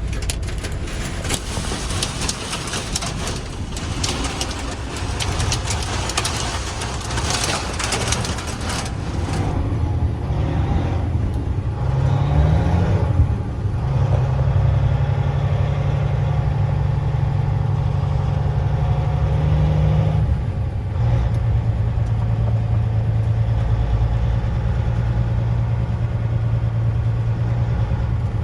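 A motor vehicle's engine running with a steady low hum that shifts pitch twice. For the first third it is covered by a noisy rushing hiss with many quick crackles.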